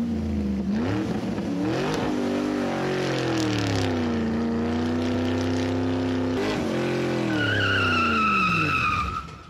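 Dubbed truck engine sound, revving and straining with its pitch rising and falling. A high, wavering tire squeal joins it near the end, then the engine winds down and fades.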